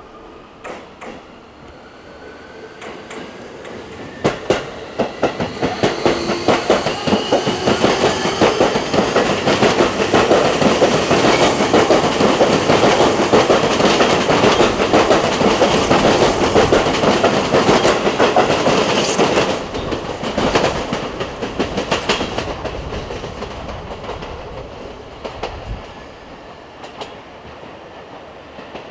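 Electric train going by with its VVVF inverter whine rising in pitch as it picks up speed, and its wheels clattering over rail joints. It is loudest in the middle and dies away over the last few seconds.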